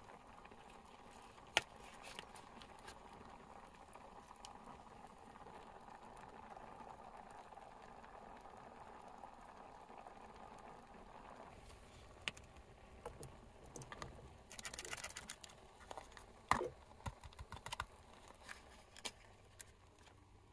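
Faint handling sounds: scattered small clicks and taps, a brief rustle, and a sharper knock about three-quarters of the way through, over a faint steady hiss that stops just past halfway.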